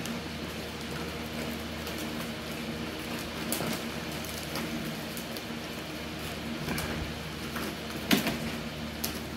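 Alaskan Klee Kai puppies playing in a pen: scattered light clicks, rustles and knocks over a steady hum, with one sharp knock about eight seconds in.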